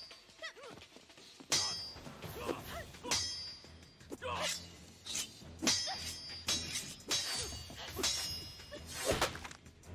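Sword-fight sound effects: a quick run of about ten metallic blade clashes, each ringing briefly, mixed with short shouts and grunts from the fighters over a low music score.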